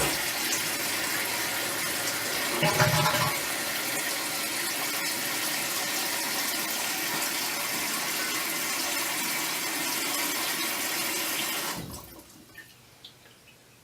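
Toilet tank refilling after a flush, water hissing steadily through the fill valve, then shutting off about twelve seconds in as the tank fills.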